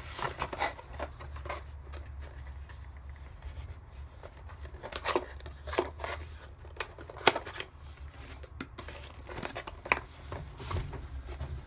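Packaging being handled: irregular small clicks, taps and rustling of plastic and cardboard as items are set in and taken out of the box, with a few sharper clicks along the way.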